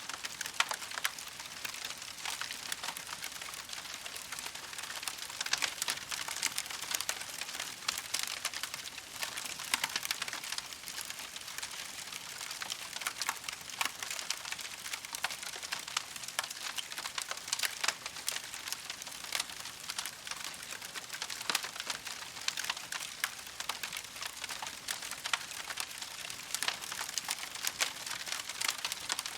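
Campfire crackling: a steady hiss full of small sharp snaps, with a few louder pops.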